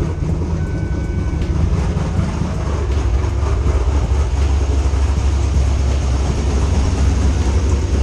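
Cammed 6.2-litre LS3 V8 of a 2010 Camaro SS with long-tube headers, just started and idling steadily. It has an exhaust leak at a header, where a header bolt is missing.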